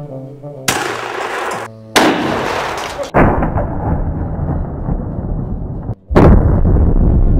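12-gauge shotgun firing slugs: sudden loud blasts, the strongest about two seconds in and again about six seconds in, each followed by a long rush of noise.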